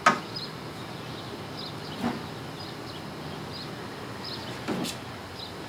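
Quiet outdoor background with three soft knocks spread out, likely a toddler bumping against a plastic children's easel, and a few faint high chirps.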